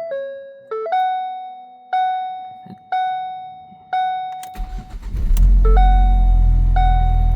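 2012 Ford Focus dashboard warning chime, sounding single notes about once a second, then the engine cranks briefly and catches a little over four and a half seconds in. It keeps running steadily and louder than the chime, which sounds twice more over it. This is the first start on a freshly installed battery.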